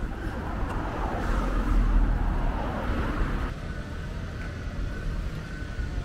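Vehicle and traffic noise with a steady low rumble, changing abruptly about three and a half seconds in.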